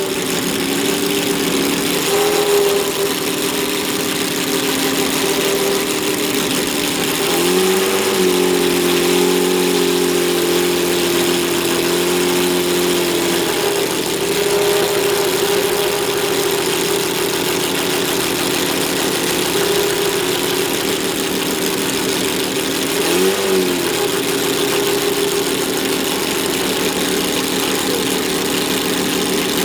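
Ferrari P3/4's 4.0-litre V12 idling, with short blips of the throttle about two seconds in and near the end, and a slightly raised idle held for several seconds from about seven seconds in.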